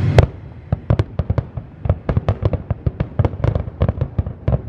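Aerial fireworks display: one loud boom right at the start, then a quick, irregular run of crackling pops and bangs, several a second.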